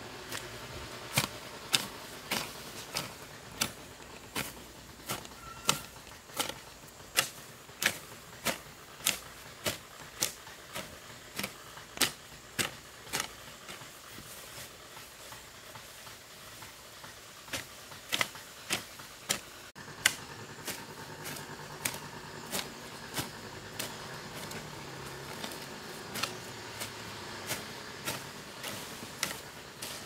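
Hand hoe chopping into soil and weeds in a steady rhythm, a little under two sharp strikes a second, with a short pause about halfway through before the strokes resume more softly.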